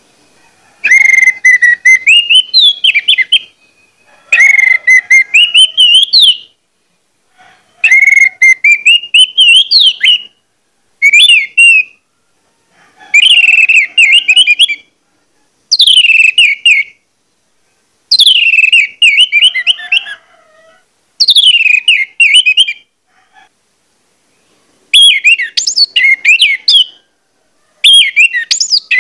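Orange-headed thrush (anis merah) singing loud whistled phrases, about ten of them, each lasting one to two and a half seconds with short pauses between. The notes slide up and down, and several phrases open with a quick downward sweep.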